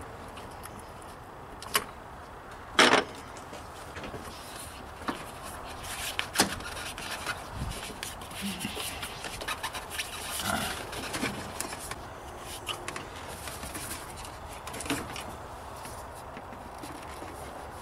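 A screwdriver loosens a hose clamp on a rubber air intake tube, and the tube is worked loose by hand: scattered clicks and scraping. Two sharp clacks come near the start, the second the loudest.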